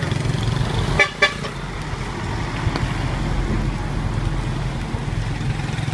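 Steady low rumble of street traffic, with a vehicle horn tooting twice in quick succession about a second in.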